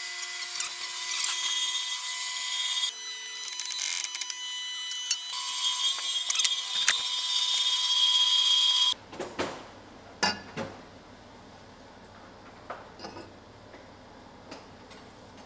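A power tool cutting steel exhaust tubing, a loud high whine with hiss that stops abruptly about nine seconds in. It is followed by quieter clicks and knocks of metal pieces being handled.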